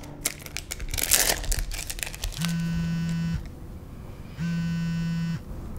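Crinkling and rustling of paper or plastic being handled for about two seconds, then a smartphone's outgoing-call ringback tone: two identical rings of about a second each, a second apart, as the call waits to be answered.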